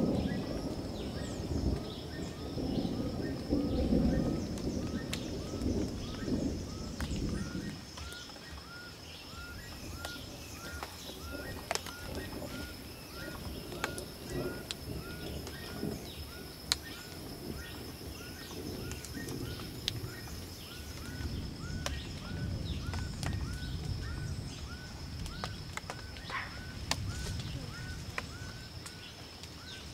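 Tropical forest ambience: a steady high-pitched hum runs under a short chirp repeated about twice a second. Low rumbling noise is loudest for the first several seconds, with a few sharp clicks.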